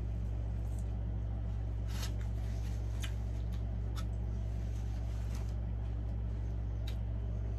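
Steady low hum, with a handful of faint short clicks scattered about a second apart.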